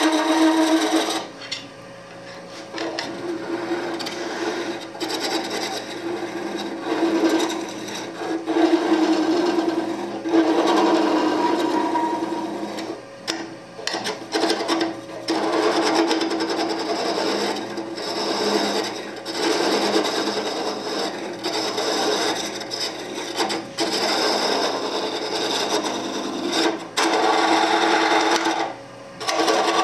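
Turning tool cutting into the end grain of a spinning wooden blank on a Oneway wood lathe, hollowing it: a rough scraping cut over the lathe's steady hum, breaking off briefly several times.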